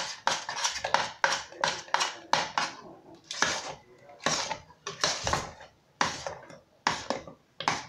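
Metal wire whisk stirring a thick maja blanca mixture in a stainless steel pot, clinking and scraping against the pot in quick repeated strokes that thin out after about five seconds. The pudding is being stirred as it thickens to keep it from forming lumps.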